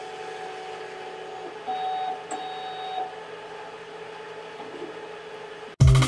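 Motors of the MicroCal PEAQ-ITC Automated instrument running steadily as the system homes, with a louder stretch of whirring about two seconds in. Music cuts in abruptly near the end.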